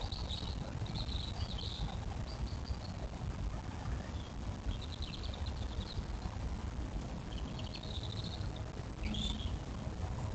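A small songbird singing short, high, trilled phrases every second or two, over a steady low rumble.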